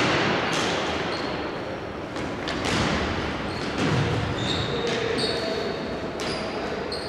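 Indoor hockey play echoing in a sports hall: a run of sharp knocks from sticks, ball and side boards, with short high squeaks among them.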